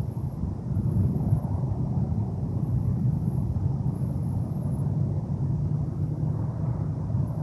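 Wind buffeting the microphone: a steady, wavering low rumble.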